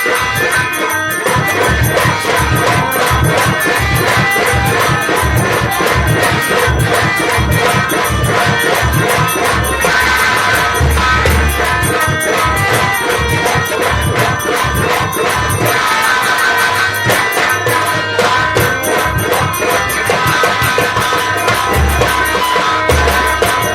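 Instrumental Nautanki folk-theatre music: rapid drum strokes and jingling percussion under steady held melody notes. The low drumming grows heavier about ten seconds in and again near the end.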